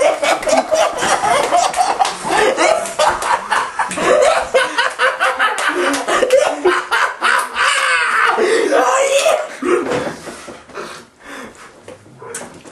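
A group of men laughing, with some talk mixed in; the laughter dies down about ten seconds in.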